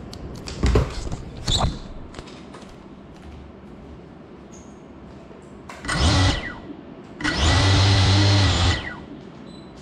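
Cinewhoop quadcopter's brushless motors and ducted props spinning up in short bursts while the crashed drone sits on the floor: two quick blips about a second in, a short burst near six seconds, then a longer run of about a second and a half that winds down.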